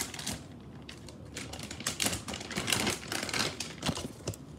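Silicone pop-it fidget toy (a watermelon poppet) being handled and its bubbles pressed, giving a quick, irregular run of small clicks and pops.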